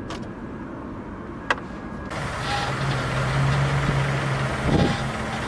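A sharp click, then the GAZelle's Chrysler engine starts about two seconds in and settles into a steady idle. There is no constant buzz from the newly replaced fuel pump.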